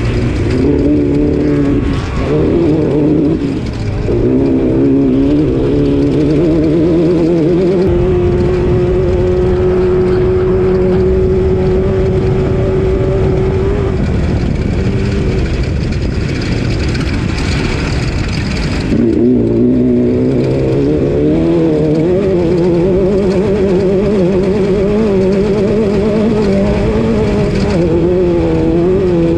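Class 12 off-road race car's engine running hard. Its pitch climbs in steps over the first few seconds and holds level for several seconds near the middle. It falls away about two-thirds through, then climbs and wavers again with the throttle, over constant loud noise.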